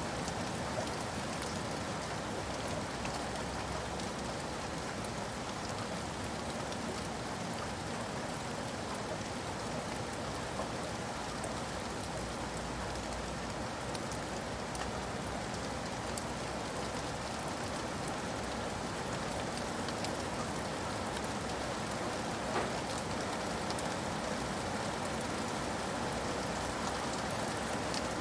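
Steady rain falling on a surface, an even hiss with scattered drops ticking.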